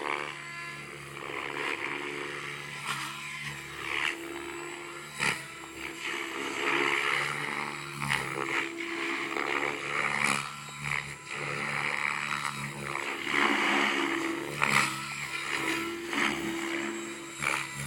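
Electric RC helicopter in flight: a steady motor and rotor hum with a rushing blade noise that keeps swelling and fading as it manoeuvres.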